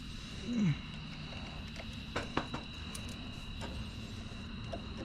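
A few sharp clicks of hand tools being handled, about two seconds in, over a steady low hum and a faint high whine, with a short voiced murmur near the start.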